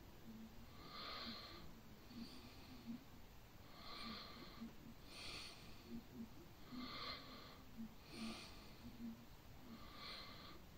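Faint, steady breathing close to the microphone: soft hissy breaths about every second and a half, alternating between two slightly different sounds like breathing in and out.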